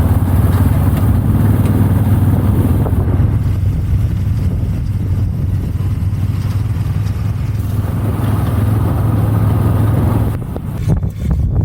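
Farm tractor engine running steadily under load while mowing hay. About ten seconds in the engine sound drops away and rough irregular crackling takes over.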